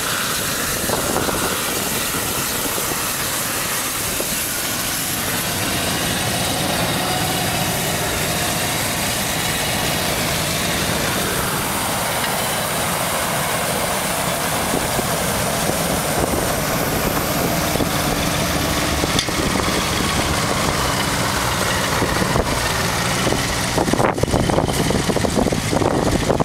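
Hefty-G cultivating tractor's engine running while its front-mounted propane flame weeder burns on high power, a steady roar. A few knocks near the end.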